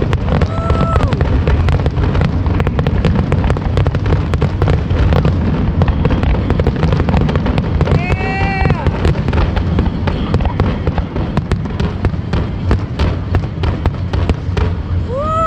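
Fireworks display: a dense, unbroken run of bangs and crackles over a deep rumble. A few short pitched tones rise and fall over it, one near the start, one about halfway and one at the very end.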